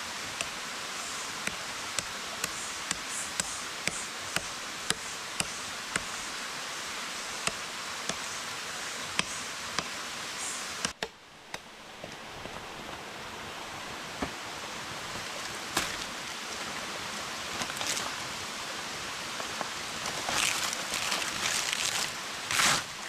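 Steady rush of stream water under sharp, irregular taps of a large knife blade striking a wooden stump as wood is shaved into tinder. The water sound briefly drops out about halfway, and near the end there is a rustling of leaves being handled.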